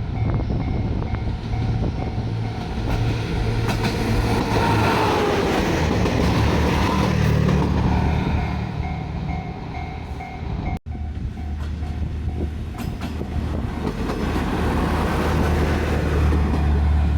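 JR Shikoku diesel railcars idling at the platform: a steady low engine hum, with a faint tone pulsing on and off above it. The sound cuts out for an instant about eleven seconds in.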